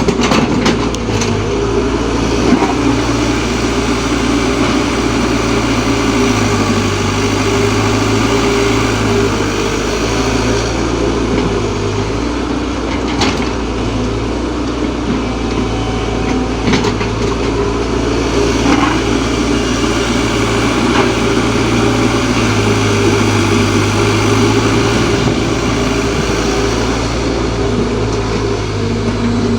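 Diesel engines of a Kobelco excavator and a Sonalika tractor running steadily while soil is loaded, with a few short clanks now and then.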